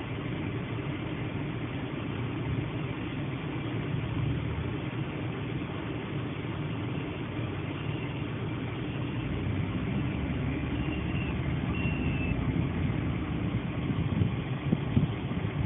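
A vehicle engine running steadily at low revs, a low rumble that grows a little louder near the end, with a few faint high tones in the middle.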